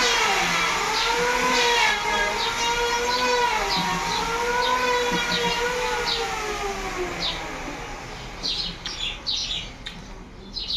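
A long wavering wailing tone that slowly rises and falls in pitch, fading out after about eight seconds, with repeated short bird chirps that are clearest near the end.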